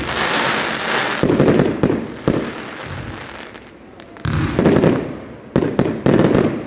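Aerial fireworks going off: a run of loud bangs, each trailing off into crackling, coming in two clusters with a lull in the middle.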